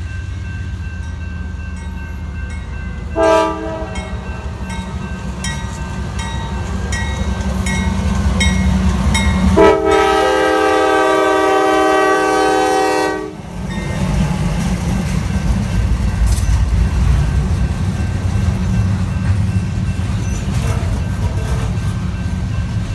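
Diesel freight locomotive horn: one short blast, then a long chord of several notes held for nearly four seconds, over the steady low rumble of the two CSX diesel locomotives. The rumble grows louder after the long blast as the train draws near.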